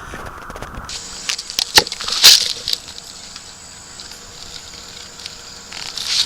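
Insects calling with a steady high buzz that starts about a second in, with several short noisy bursts over it, the loudest about two seconds in and another near the end.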